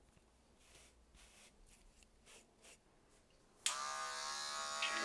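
Near silence, then about three and a half seconds in an electric hair clipper switches on and buzzes steadily.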